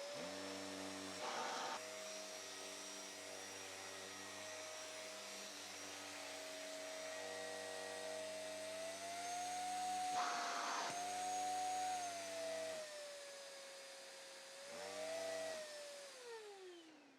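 Repaired dust-mite vacuum cleaner running with a steady motor whine and strong suction: the machine works again. Its pitch rises for a few seconds in the middle, and short bursts of rushing air come in three times. Near the end it is switched off and the whine falls away as the motor spins down.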